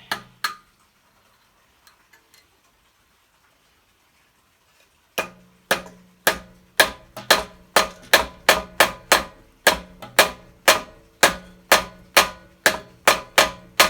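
Small hammer tapping the flywheel key into the crankshaft keyway of an old Honda generator engine: a steady run of sharp, ringing metal taps, a little over two a second, beginning about five seconds in. The key is a tight fit.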